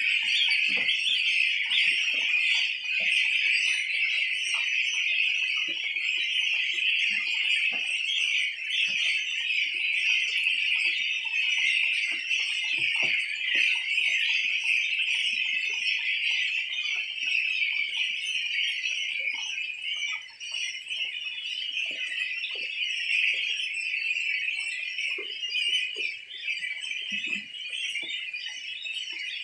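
A large flock of 18-day-old goslings peeping all at once in a dense, continuous high-pitched chorus, with scattered light knocks and rustles beneath.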